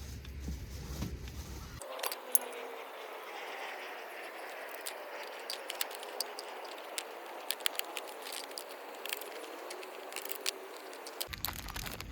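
Hot oil sizzling in a pan, with frequent small pops and a faint wavering whistle. It starts abruptly about two seconds in and stops near the end.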